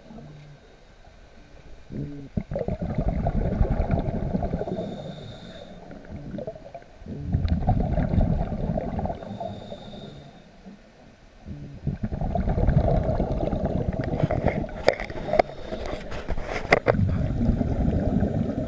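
Scuba diver breathing through a regulator underwater: exhaled bubbles rumble in three long bursts of several seconds each, with quieter inhale pauses between them. A run of sharp clicks comes in the last few seconds.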